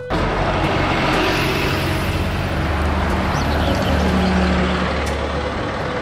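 City double-decker bus engine running at a bus stop, a steady low engine drone under street traffic noise.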